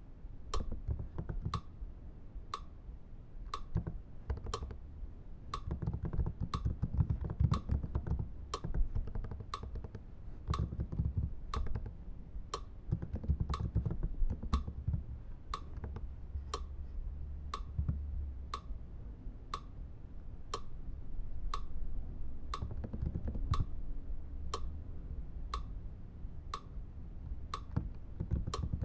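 Typing on a computer keyboard, an uneven run of muffled key taps, under a steady, evenly spaced tick about one and a half times a second.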